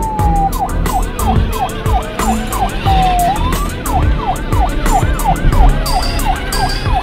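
Electronic police siren from a ride-on toy police car, running in fast up-and-down yelp sweeps, about three a second, with a slower single falling and rising wail around the middle.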